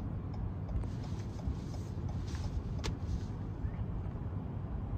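Wind buffeting the microphone: a steady low rumble with irregular gusty flutter, and one sharp click a little past the middle.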